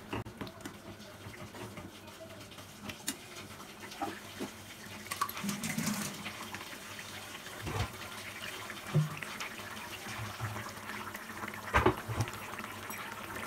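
Fish curry bubbling in a kadai on a gas flame turned up to bring it to the boil: a soft steady simmer with small pops. Two dull knocks are heard, one past halfway and one near the end.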